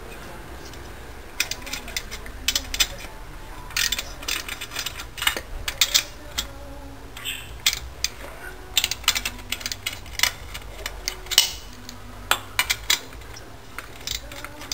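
Ratchet wrench with a 14 mm socket clicking in short irregular bursts as the cylinder head nuts of a 66cc two-stroke bicycle engine are worked loose.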